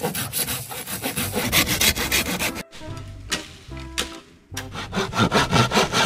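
Hand saw cutting bamboo in quick back-and-forth strokes, with a break of about two seconds midway before the sawing resumes.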